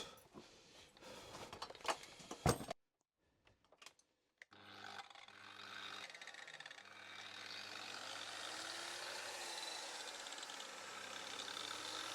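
A few clicks and scrapes of metal being handled, then, after a short break, a steady machine hum with a hiss that slowly grows louder.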